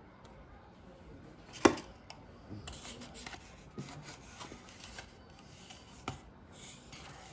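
Tableware noises during a meal: one sharp clink about a second and a half in, then soft scraping and small clicks, with another click near the end.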